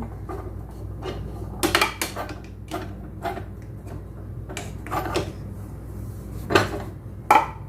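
Metal kitchen utensils and small pots clinking and knocking as they are handled and hung on the hooks of a kitchen rail: a string of separate, irregularly spaced clinks.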